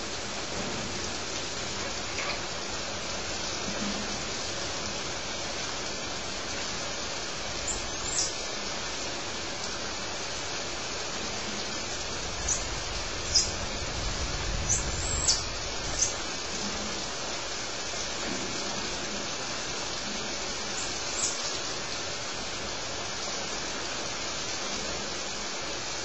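Squirrel monkeys giving short, high-pitched falling peeps, about a dozen scattered through, most of them bunched around the middle, over a steady hiss.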